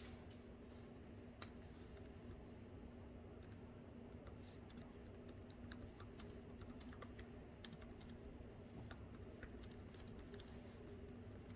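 Faint typing on a laptop keyboard: light, irregular key clicks in quick runs, over a steady low hum.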